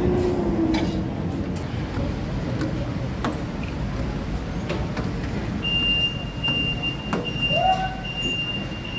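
Steady low rumble of a ferry's engines and onboard machinery, heard from inside the ship's stairwell, with a few sharp knocks and a thin, steady high tone that sets in about six seconds in.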